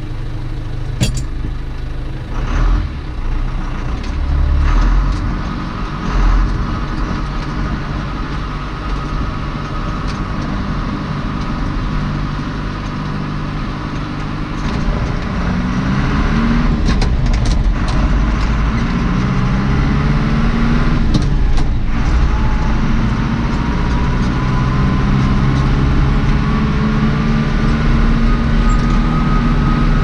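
John Deere 2650's four-cylinder diesel engine running under way, heard from inside the cab, with a few knocks and rattles early on. About halfway it revs up and drops back several times through gear changes, then pulls steadily and louder with its pitch slowly rising.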